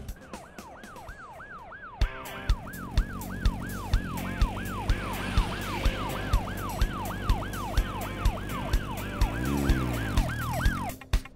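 Police siren in a fast repeating wail, each sweep falling in pitch, about three a second. Background music with a steady beat comes in about two seconds in, and the siren stops shortly before the end.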